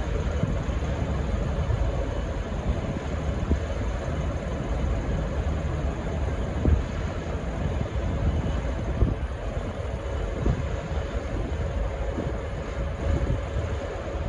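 V/Line N class diesel locomotive rumbling steadily at low pitch as it gets ready to depart, with a few faint knocks.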